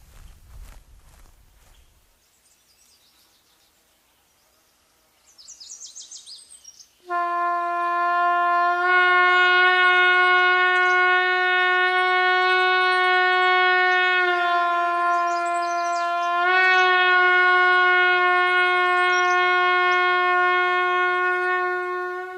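A few short bird chirps, then a horn comes in suddenly about seven seconds in, sounding one long, steady, loud note. It wavers slightly twice partway through and begins to fade at the very end.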